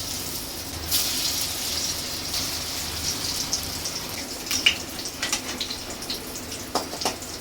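Pieces of dhoka (lentil cake) frying in hot oil in a kadai, a steady sizzle, with a few sharp clinks of a utensil in the second half.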